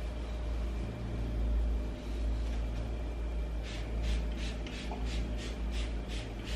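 Dry rag rubbing the stainless steel fridge handle in quick back-and-forth wiping strokes, about three a second, starting about halfway through and stopping near the end, over a steady low rumble.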